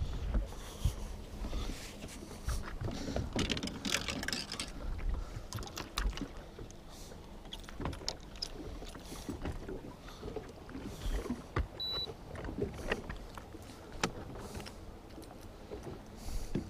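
Water slapping against the hull of a small fishing boat, with scattered small knocks and clicks on board. There is a brief high beep about twelve seconds in.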